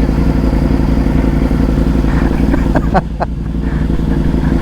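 Sport-bike engine idling steadily, with a couple of sharp clicks about three seconds in.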